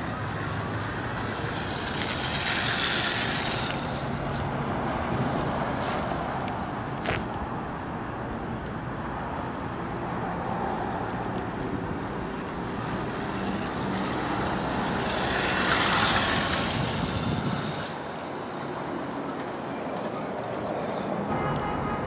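Steady outdoor traffic and street noise, with two louder swells of hiss, one about two seconds in and another around sixteen seconds, and a single sharp click a little before halfway.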